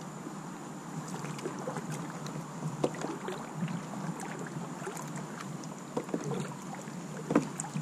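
Kayak paddling: the paddle dipping into calm water with soft splashes and drips, and scattered light knocks and clicks.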